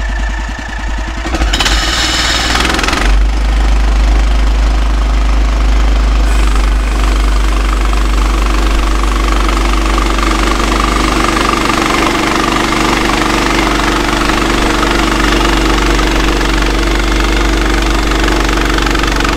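Woodland Mills HM126 band sawmill's small gas engine throttling up about two seconds in, then running steadily under load as the band blade cuts lengthwise through a fir log.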